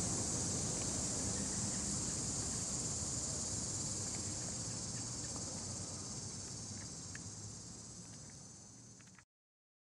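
Steady high-pitched insect chorus over a low outdoor rumble, fading out and cutting off near the end.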